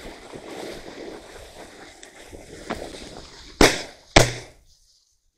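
Two shotgun shots about half a second apart, each sharp and loud with a brief ringing tail.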